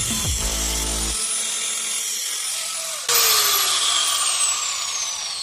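A power tool running in two bursts. The first winds down in pitch within the first second; the second starts suddenly about three seconds in with a high whine that falls steadily in pitch.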